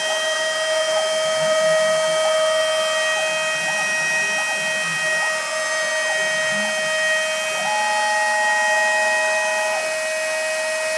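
CNC router spindle running steadily with a high whine as a V-carve bit cuts lettering into pink foam. A second, higher tone joins for about two seconds late on.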